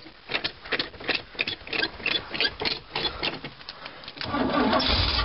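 Oldsmobile 403 V8 cold-cranked by its starter in quick, even pulses, about five a second, then catching about four seconds in and running. A cold start: the engine fires easily after sitting unstarted.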